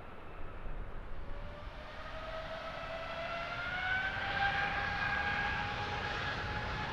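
Twin jet engines whining, rising in pitch over a few seconds and then holding steady and louder: the Rolls-Royce Trent XWB engines of an Airbus A350-941 spooling up to takeoff power.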